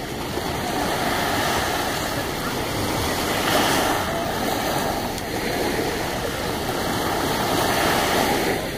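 Small waves lapping and washing up onto a sandy beach in a steady wash of surf, swelling a little about three and a half seconds in and again near the end.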